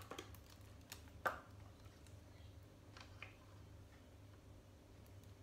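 Faint handling sounds: a few light clicks and knocks from the stainless steel bowl and parts of a Mitochiba CH200 chopper being handled, the sharpest near the start and just over a second in, with smaller ones about three seconds in.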